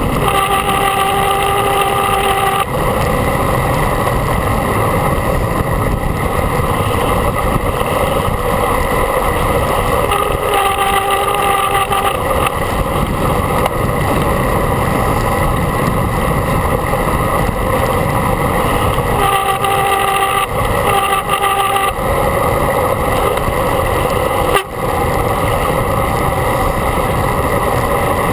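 Steady wind rush and road noise on the microphone of a camera riding on a moving road bike. A faint whine comes and goes three times over it.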